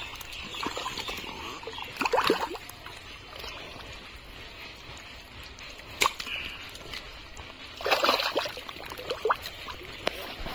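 Thick watery mud sloshing as a man wades and gropes through it by hand for fish, with a few louder splashes, one about two seconds in and a bigger one near eight seconds, and a single sharp click about six seconds in.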